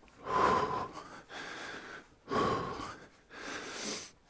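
A man breathing hard and out of breath from exercise: two loud exhales about two seconds apart, each followed by a quieter inhale.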